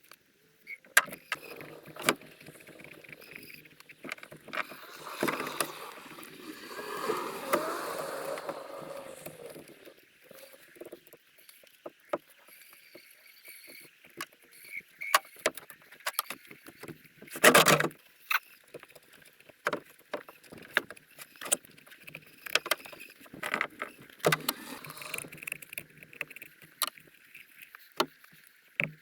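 Sped-up butchering noises: scattered clicks, knocks and scrapes from knife and carcass handling, with a wavering pitched sound for a few seconds about a quarter of the way in and one loud burst a little past the middle.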